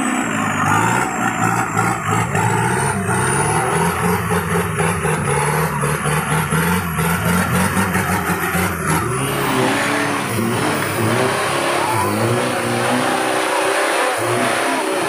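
Off-road pickup engine revving hard in deep mud, its pitch rising and falling as the driver works the throttle. A thin high whine climbs and then falls away about nine seconds in.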